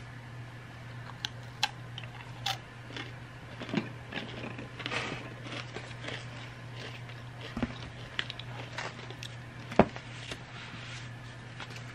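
Scattered small clicks and light crackles of a rolled wafer cookie being bitten and things being handled on a table, over a steady low hum. One sharper click comes near the end.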